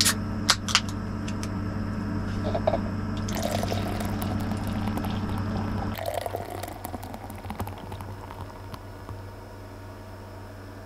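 A can of low-alcohol beer is opened with a few sharp clicks, then poured into a glass with a rushing hiss. The foam fizzes and crackles, fading away as the head settles. A portable air conditioner hums steadily underneath.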